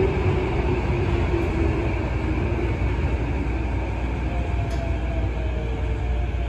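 Tokyo Metro 15000 series train braking into a station, heard inside the car: the Mitsubishi IGBT VVVF inverter and traction motors whine in slowly falling tones over the rumble of the wheels, a second, higher falling whine starting about halfway through.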